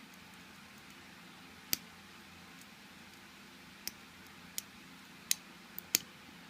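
About six sharp metal clicks at irregular intervals from a hook pick and tension wrench single-pin picking a Master Lock M15 laminated padlock. The loudest comes near the end. Under them runs the steady hiss of an electric fan.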